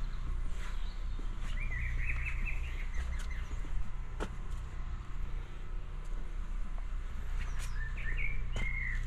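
Small birds chirping and warbling in two short bursts, over a steady low rumble.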